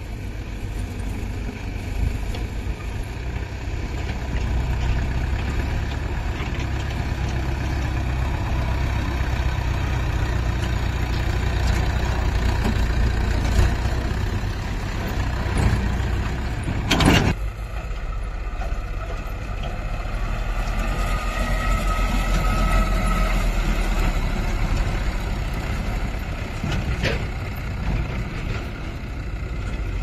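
Mahindra 575 tractor's diesel engine running steadily as it pulls a trailer over rough ground, with one sharp knock a little past halfway.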